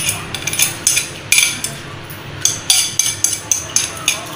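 Metal tongs clinking and scraping irregularly against a metal frying pan as spaghetti is tossed.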